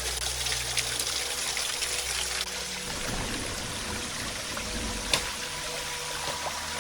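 Water trickling steadily, with scattered small clicks and one sharp click about five seconds in.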